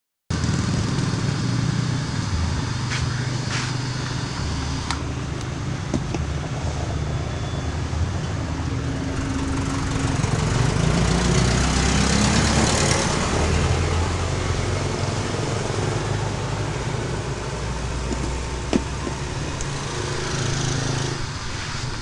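Hair dryers mounted in a homemade flash dryer box running: a steady rushing blow over a motor hum, swelling a little about halfway through, with a few light knocks.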